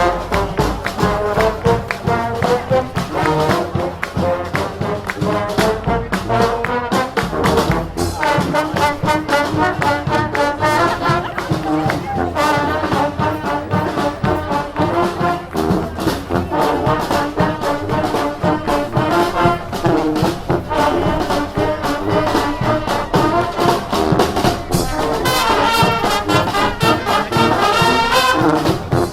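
Marching band playing live: brass horns carrying the tune over a steady drum beat.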